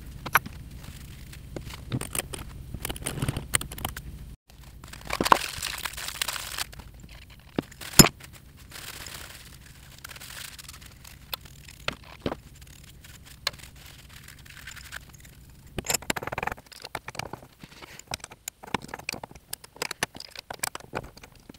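Metal parts of a Taig mini lathe's 5C headstock being handled and fitted by hand: scattered clicks, clinks and short scrapes, with a sharp metal knock about eight seconds in.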